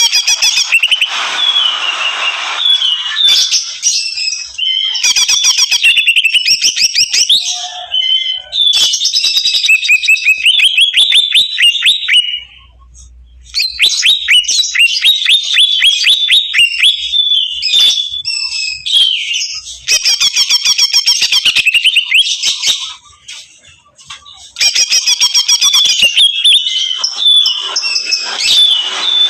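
Green leafbird (cucak ijo) singing loudly and aggressively in long runs of rapid, chattering trills and sharp whistled phrases, broken by two short pauses.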